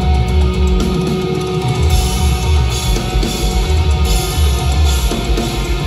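Rock band playing live and loud: electric guitars, bass guitar and drum kit, heard from the crowd.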